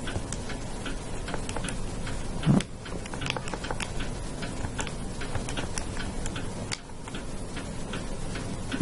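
Calculator keys being pressed: light, irregular clicks about two or three a second as a sum is keyed in. A brief low sound about two and a half seconds in.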